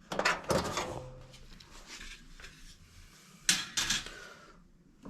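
Range hood side trim pieces being pushed down and popped out of their mountings, giving short clunks and clicks: a pair near the start and another pair about three and a half seconds in.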